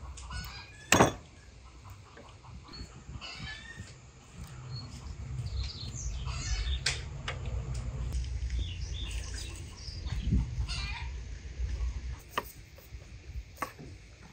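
A raw lamb carcass being handled and cut on a wooden board: one sharp knock about a second in, then low rubbing and handling noise with a few light clicks near the end. Birds chirp in the background.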